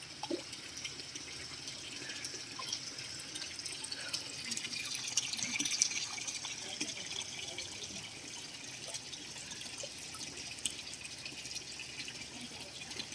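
Water trickling and splashing, dotted with small irregular drips and splashes and a little louder about four to six seconds in.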